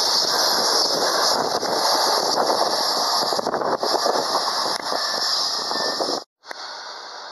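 Container freight wagons rolling past on the rails: a steady, loud rolling noise of wheels on track with light clatter. It cuts off suddenly about six seconds in, and a much quieter steady noise follows.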